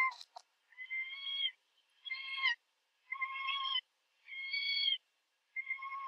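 A tuxedo cat meowing over and over in a recorded bath video, sped up to double speed so each meow is short and high. There are about six meows, roughly one a second, and a brief click just after the start.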